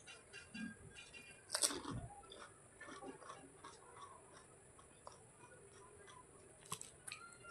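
A person chewing food close to the microphone, with small wet mouth clicks and crackles throughout and a louder sudden bite or clatter about a second and a half in.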